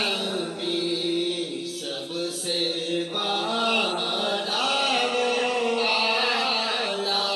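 A man singing a naat, an Urdu devotional poem in praise of the Prophet, into a microphone and amplified over a loudspeaker system, in long held notes that waver in pitch.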